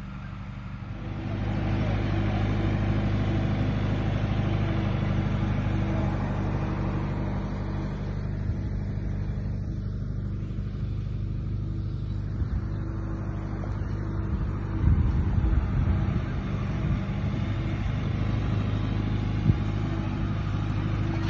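A tractor engine running steadily at an even speed, a low hum that holds one pitch, with a few low knocks and rumbles about three-quarters of the way through.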